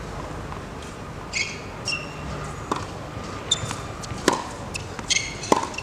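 Tennis ball hit by a racket and bouncing on a hard court: a few sharp pops, the loudest about four seconds in, with short high squeaks between them.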